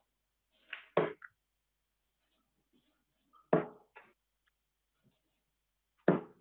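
Three steel-tip darts thudding one after another into a Winmau Blade 5 bristle dartboard, about two and a half seconds apart.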